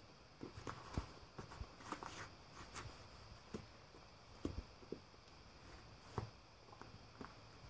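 English cream golden retriever chewing and tearing the thin cardboard of an empty Kleenex tissue box: faint, irregular crackles and crunches.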